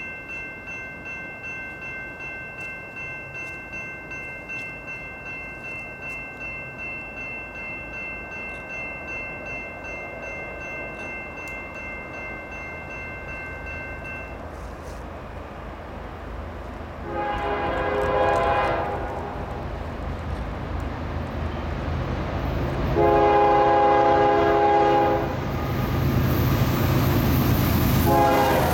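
A grade-crossing bell rings steadily, pulsing about twice a second, and stops about halfway through. The horn of a CSX GE ES40DC locomotive then sounds three times as the freight train approaches: a blast of over a second, a longer one, and a third that runs on past the end, over the rising rumble of the two locomotives' V12 diesel engines.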